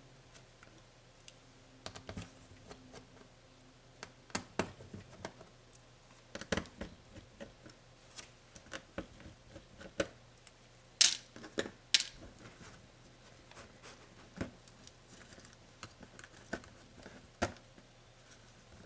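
Irregular clicks, taps and light knocks of small plastic and metal laptop parts and hand tools being handled while a Lenovo ThinkPad Yoga 260 is dismantled, the two sharpest clicks coming about eleven and twelve seconds in. A faint steady low hum runs underneath.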